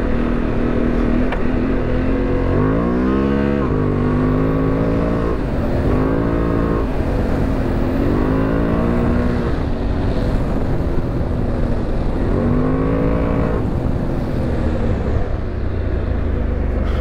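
Honda Transalp 750 parallel-twin engine through a Yoshimura exhaust, riding on a dirt track under a steady rush of wind and road noise. The revs climb four times as the rider accelerates.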